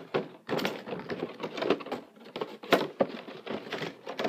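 Irregular clicks, taps and crinkles of toy packaging being handled as a vinyl creeper figure is taken out of its box.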